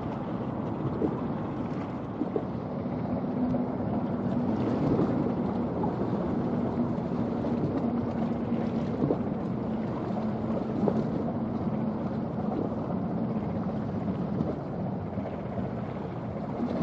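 Large bulk carrier's engine and exhaust rumbling steadily as the ship passes. A faint low hum comes in a few seconds in and fades before the end, over light wind noise on the microphone.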